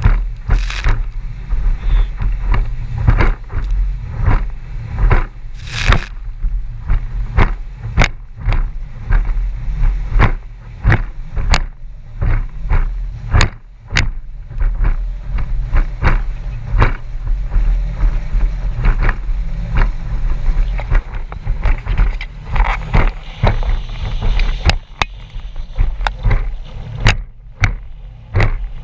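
Small boat's outboard motor running at speed, a steady low rumble muffled by a waterproof camera housing, with the hull banging irregularly over wind chop.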